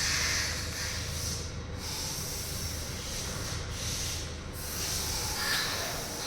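A steady hiss over a low mechanical hum. The hiss drops out briefly a few times, and the hum stops about five seconds in.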